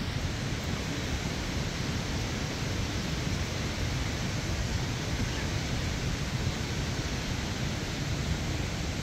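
Steady, even rushing of a fast mountain river close by, with no other distinct sound.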